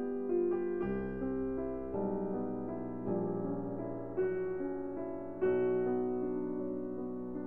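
Background piano music: a slow melody over held chords, with new notes struck every half second to a second.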